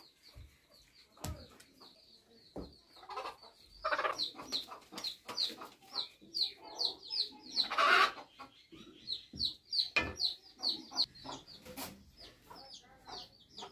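A rooster held by its legs clucking and squawking in alarm, with rapid short high calls throughout and its wings flapping against its handler; the loudest burst comes about eight seconds in.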